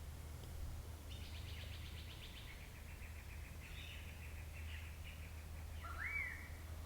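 Wild birds singing: a fast run of high, rapidly repeated notes for several seconds, then a louder whistled note that sweeps up and falls away near the end, over a steady low rumble of outdoor background noise.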